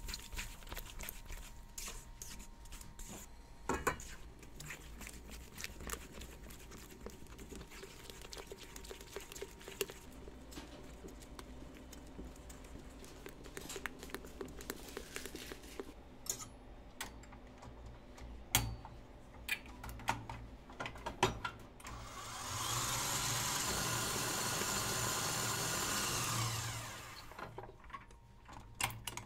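A hand whisk clicking and scraping against a stainless steel bowl as egg whites and sugar are whisked for meringue. About 22 seconds in, a KitchenAid stand mixer runs at high speed for about five seconds, whipping the meringue, then winds down.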